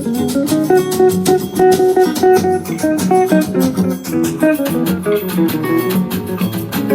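Jazz guitar music played through an Anker Soundcore Bluetooth speaker: a quick run of plucked single notes over a bass line.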